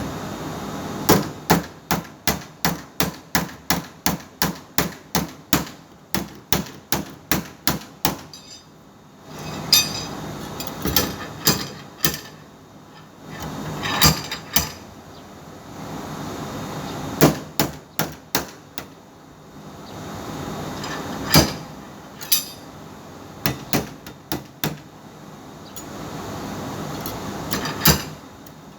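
Hammer blows on sheet metal, typical of panel-beating body work: a quick, even run of about three blows a second for several seconds, then scattered single blows, over a steady background noise.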